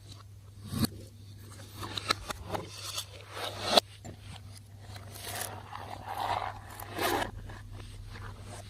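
Slime being worked by hand: irregular sticky scraping and crackling strokes, with a sharper one every second or two, over a steady low hum.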